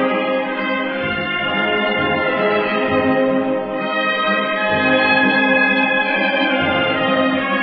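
Maltese wind band playing a slow funeral march, with the brass holding long chords.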